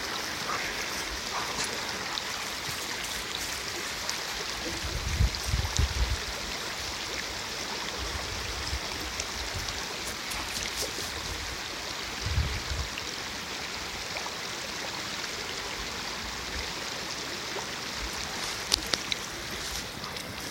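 Shallow creek running over gravel riffles, a steady rushing of water. A few brief low rumbles come about five seconds in and again near twelve seconds, and a couple of sharp ticks near the end.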